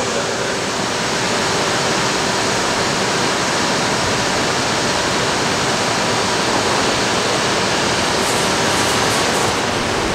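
Steady rushing noise of a Shinkansen train at the platform, with a faint steady hum under it.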